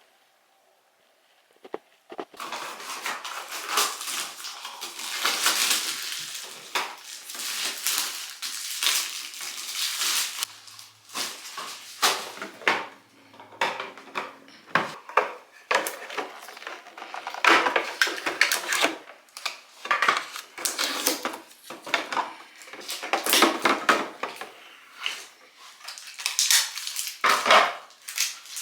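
Hard household items clinking, clattering and knocking as they are handled and set down, in an uneven run of sharp sounds that starts about two seconds in after near silence.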